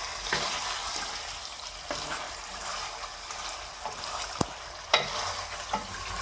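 Beef karahi sizzling in a metal karahi as a wooden spoon stirs it, with a few sharp knocks in the second half. This is the bhunai stage: the yogurt's liquid has cooked off and the meat, chillies and ginger are frying in their oil.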